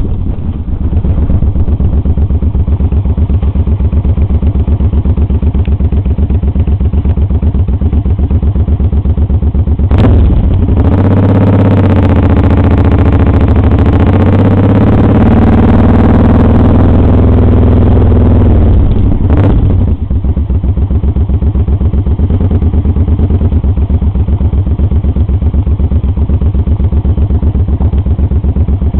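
Suzuki Boulevard C50's V-twin engine running on the move, its exhaust beat close to the microphone. About ten seconds in the sound changes and becomes brighter for roughly ten seconds, then the steady running returns.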